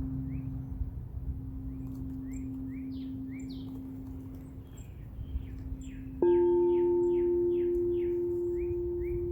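Singing bowl ringing and slowly fading. About six seconds in, a higher-pitched bowl is struck and rings out louder, decaying slowly. Birds chirp over it in quick, short repeated notes.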